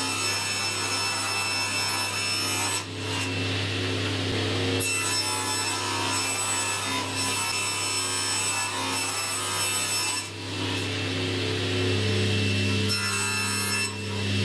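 Table saw running and ripping laminate flooring board into strips, the blade cutting steadily under a constant motor hum, with a few brief dips in the cutting noise.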